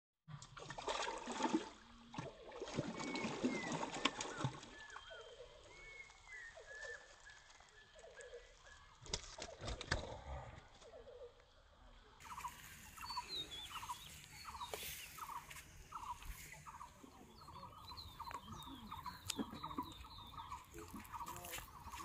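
Birds calling at a rural riverside. In the second half a bird gives a run of short calls, about two a second. Rustling and knocking noises come in the first few seconds and again about ten seconds in.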